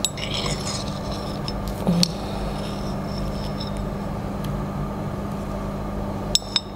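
Metal spatula scraping and clinking against a porcelain Büchner funnel while aspirin crystals and filter paper are worked out of it, with a knock about two seconds in and two sharp clicks near the end, over a steady background hum.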